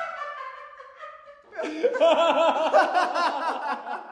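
Two men laughing hard together. After a brief lull, a long run of hearty ha-ha laughter starts about a second and a half in.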